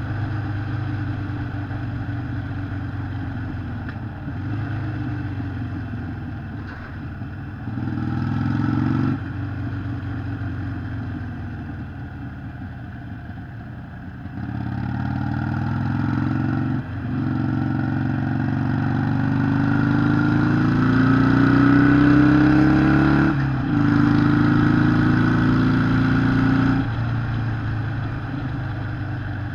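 Harley-Davidson Sportster 883 SuperLow's air-cooled V-twin engine running under way. Its pitch climbs several times under acceleration, and each climb breaks off in a sudden short dip to a lower pitch, like an upshift.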